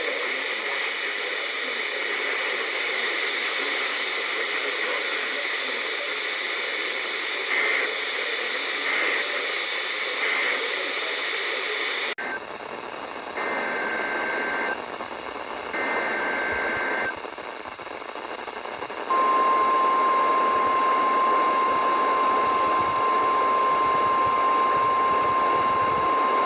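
NOAA Weather Radio Emergency Alert System tones heard through radio static. First come three short screechy SAME data bursts, the end-of-message code. After a cut come two longer warbling two-tone SAME header bursts. About two-thirds of the way in, the steady single-pitch weather radio warning alarm tone starts and holds.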